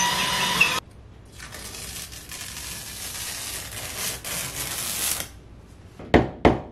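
Power drill boring holes into a wall: a short full-speed burst with a steady motor whine that stops under a second in, then a longer, quieter grinding run. A few sharp knocks near the end.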